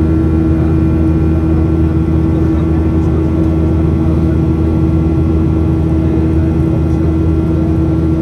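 Cabin noise of a twin-jet airliner in its climb after takeoff, heard from a seat over the wing: the engines and rushing air make a loud, steady drone with a low rumble and a constant hum.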